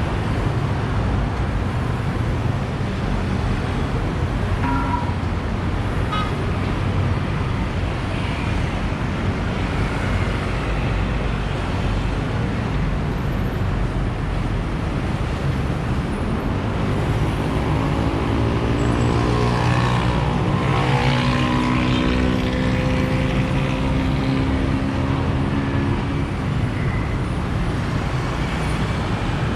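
City road traffic rumbling steadily, with one vehicle's engine passing close by and louder for several seconds past the middle.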